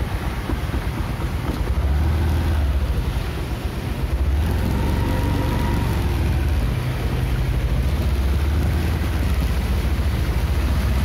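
Road traffic on a wet road, with wind on the microphone: a steady low rumble that grows a little louder about four seconds in, as cars and motor scooters drive through the standing water.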